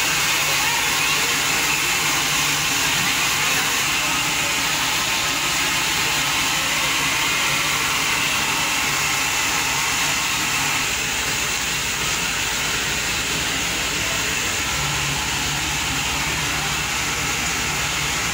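Standing steam locomotive hissing steadily, with a low hum underneath.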